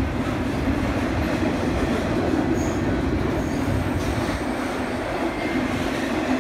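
Double-stack container cars of a freight train rolling past: a steady rumble of steel wheels on rail.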